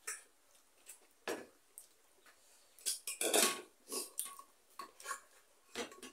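A metal spoon clinking and scraping against a stainless steel rice pot as rice is scooped out, with scattered clinks of dishes. The loudest part is a longer scrape a little past the middle.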